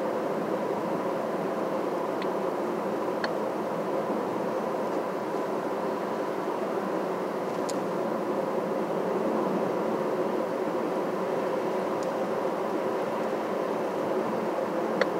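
Steady drone of a car driving along the road, with a constant hum and a few faint, scattered clicks.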